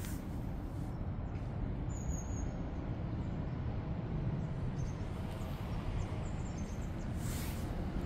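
Outdoor background of a steady low rumble, with a few faint high bird chirps about two seconds in and again later, and a brief rustle near the end.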